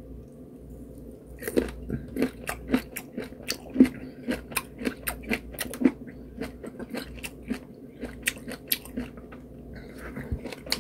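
A person chewing peeled lemon segments: wet mouth clicks and smacks, irregular, a few a second, starting about a second and a half in.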